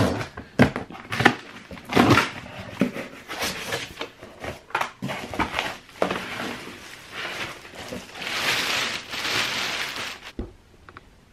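Cardboard box being handled and torn open, with knocks and scraping of the flaps, then clear plastic wrap crinkling as a large LED panel is pulled out, and a dull thump near the end as it is set down.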